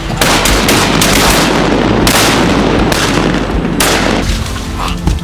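Duck hunters' shotguns firing a rapid string of blasts over about four seconds at ducks coming in, after the call to shoot.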